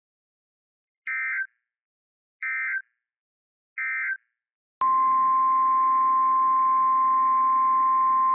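Emergency Alert System end-of-message data bursts: three short, identical electronic warbling buzzes about a second and a half apart. Almost five seconds in, a click and then a loud, steady single-pitch tone begin, the 1050 Hz weather-radio warning alarm tone, with radio hiss under it.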